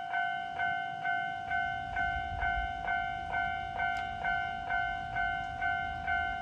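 Japanese railway level-crossing alarm ringing: an electronic two-tone bell struck about twice a second, each strike fading before the next. A low rumble sits beneath it from about a second and a half in.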